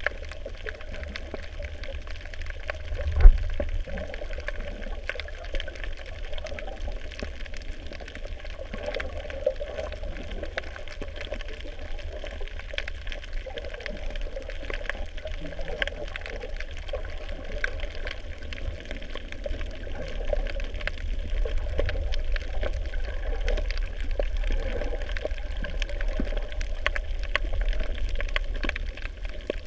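Underwater ambience over a reef, recorded from below the surface: a steady low rumble of moving water, louder in the second half, with faint crackling throughout and one sharp thump about three seconds in.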